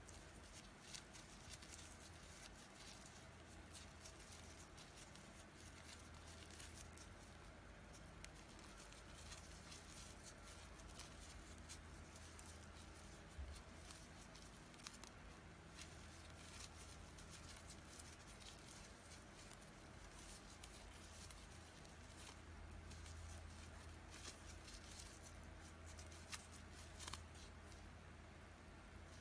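Faint, irregular rustling and crackling of raffia yarn being pulled through stitches with a crochet hook, in small scratchy ticks over a low steady hum.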